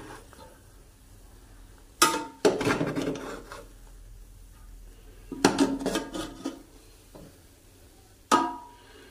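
Perforated metal spoon scraping and clanking against the side of a metal cooking pot while turning cooked biryani rice, in bursts about two seconds in, around five to six seconds in, and a single ringing clank near the end.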